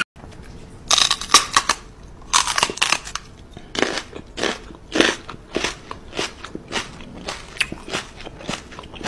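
Crisp crunching, as of crunchy food being chewed close to the microphone: two quick clusters of crunches in the first three seconds, then single crunches about twice a second.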